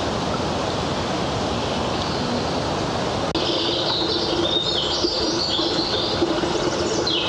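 Steady rush of running water from a shallow woodland stream. From about three seconds in, birds sing over it, with a steady low hum underneath.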